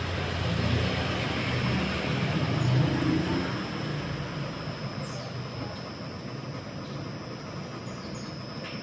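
JETSpin CR-5500 carpet spinner running, its long drum and motor giving a steady low drone under a thin high whine. The drone is loudest about three seconds in and then eases off.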